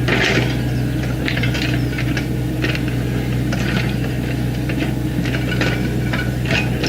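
Excavator engine running steadily, with irregular metallic clanking and squeaking from the working machine about once or twice a second.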